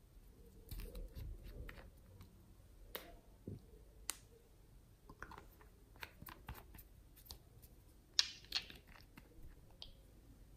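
Faint clicks and taps of fingernails and hands handling small plastic nail polish bottles, with a brief louder scraping rustle about eight seconds in.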